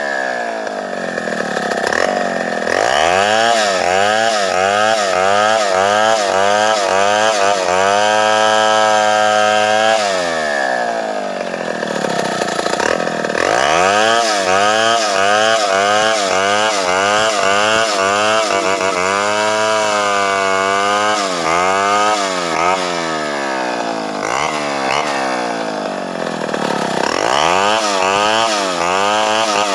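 Two-stroke chainsaw ripping a sengon log lengthwise. The engine runs loud under load, its pitch swinging up and down about once a second as the chain bites into the cut and frees, with a few longer drops in speed.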